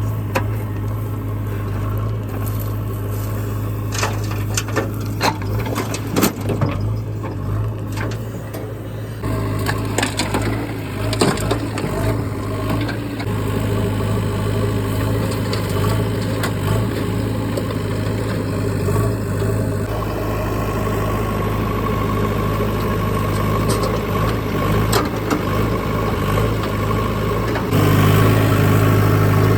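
Backhoe loader's engine running steadily, with scattered cracks and crunches during the first half, and the engine getting louder near the end.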